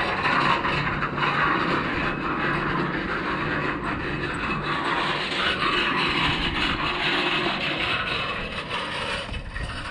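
Aviation fuel hose being pulled off its reel and dragged across a concrete ramp: a steady scraping that drops away at the end.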